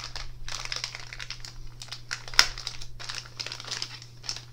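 Clear plastic bag crinkling as a folding knife is slid out of it, in irregular crackles with one sharp, louder crackle about two and a half seconds in.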